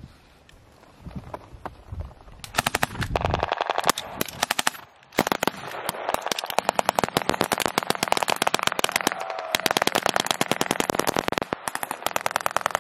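Automatic gunfire starting about two and a half seconds in: long, rapid bursts from a belt-fed machine gun with rifle fire, briefly pausing twice.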